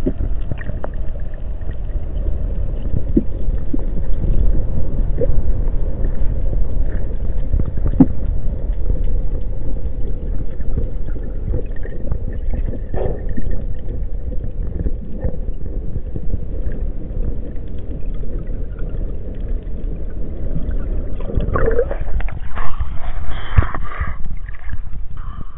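Muffled underwater rumble picked up through a camera's waterproof housing, with a few faint clicks. About twenty-two seconds in, the camera breaks the surface and splashing, lapping water takes over.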